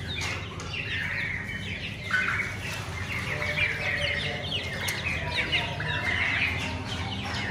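A flock of young fowl chicks peeping without pause, many short falling chirps overlapping.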